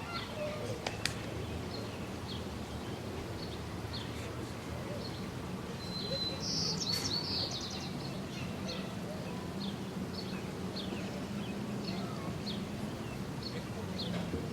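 Small birds chirping in short, repeated calls about twice a second, with a louder, brighter call about seven seconds in, over a steady low hum.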